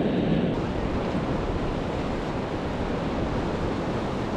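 Ocean surf washing steadily on a rocky reef, with wind on the microphone.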